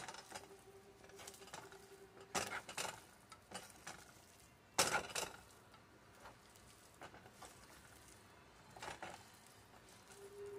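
Taro stolons, onion and chillies being mixed with oil by hand in a non-stick frying pan: faint, scattered rustling and squishing with light knocks on the pan, loudest about two and a half and five seconds in. A faint steady hum runs through the first couple of seconds and returns near the end.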